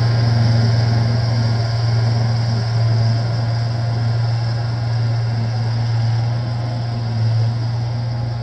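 John Deere 1445 front-mount tractor's engine running at a steady speed as it drives away sweeping gravel: a steady low hum that fades slightly.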